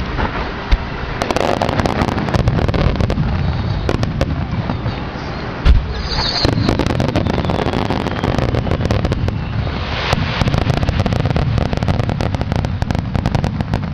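Starmine fireworks display: a rapid volley of shells bursting with dense, continuous crackling, and a heavy boom about six seconds in.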